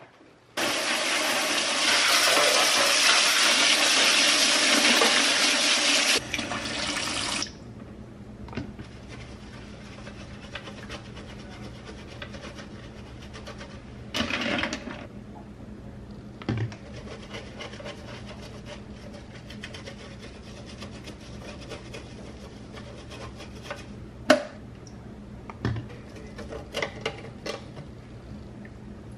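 A tap runs hard into a stainless steel sink for about seven seconds, then shuts off. After that, makeup brushes are rubbed and swished in the wet sink, with a few light clinks as brushes knock against the steel.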